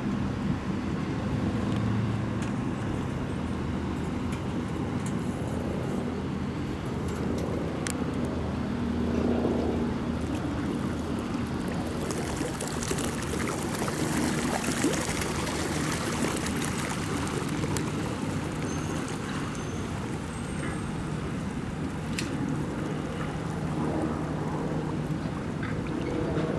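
Steady low engine hum, with a rushing hiss that rises from about 12 to 17 seconds in.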